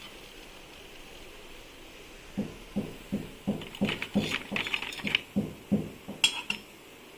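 Hot oil sizzling faintly and steadily as murukku fry, with a run of short knocks and clinks from about two and a half to six and a half seconds in.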